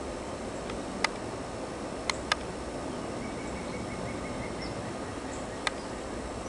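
1971 Montgomery Ward Signature window air conditioner running steadily, heard from outside. Four sharp clicks are heard, two of them close together around two seconds in, along with faint high chirps.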